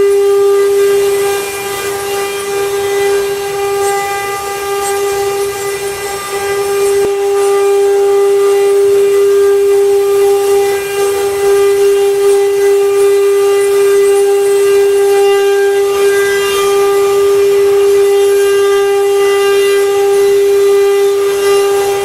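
CNC wood-carving router's spindle running with a loud, steady, even-pitched whine, dipping a little in loudness for a few seconds near the start.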